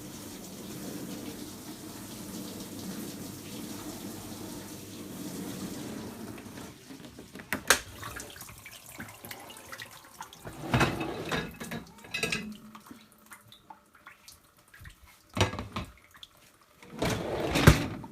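Hotpoint SDL910 dishwasher running, its pump humming under the sound of water spraying inside, until it stops about six and a half seconds in. After that come a few sharp clicks and short loud bursts of noise.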